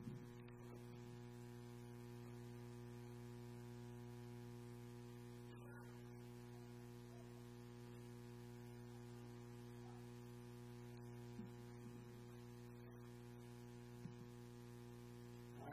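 Near silence: a steady low electrical hum, with a couple of faint knocks near the end.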